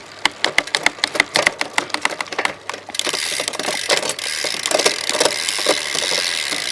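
A ratchet mechanism clicking rapidly and evenly, about eight clicks a second, for nearly three seconds. Then scattered knocks and rattles of a bike being handled on a metal maintenance stand, over a steady hiss.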